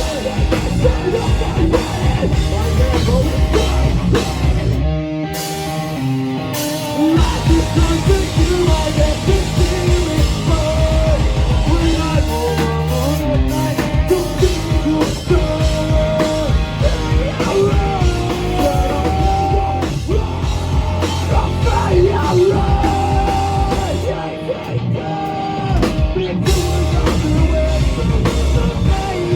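Live rock band playing loud through a club PA: drum kit, electric guitars and bass, with singing. The drums and bass drop out briefly about five seconds in and again near twenty-five seconds.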